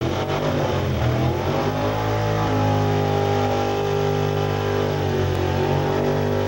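Gasoline pickup truck engine running at high revs under heavy load while pulling a weight-transfer sled. The revs climb over the first couple of seconds, hold steady, and dip briefly about five seconds in before holding again.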